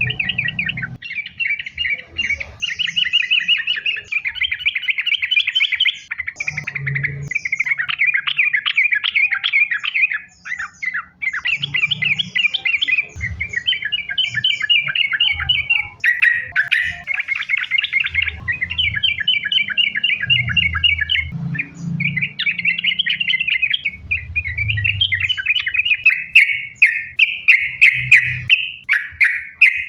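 Yellow-vented bulbul (trucukan) singing in long, unbroken runs of fast, bubbling chatter with only brief pauses: the 'gacor', continuous 'sambung ropel' song used as a lure to set other trucukan singing. Sharper, clickier notes come in near the end.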